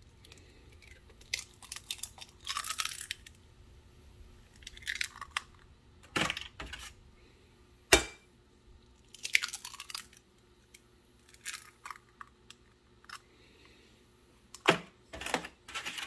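Raw eggs cracked one-handed over a glass measuring cup: a few sharp taps and short crunches of eggshell breaking, with pauses between.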